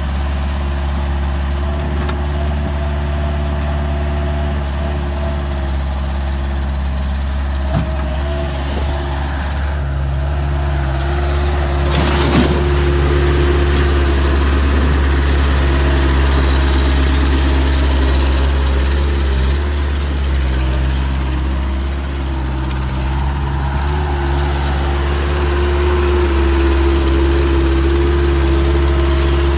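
Bobcat 753 skid steer's diesel engine running steadily, its speed picking up a little about twelve seconds in and again near the end, with a brief knock or two.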